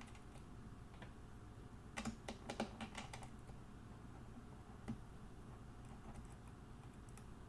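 Quick run of small, sharp clicks about two seconds in and one more click a couple of seconds later: small screws and printer-frame parts being handled and fitted by hand.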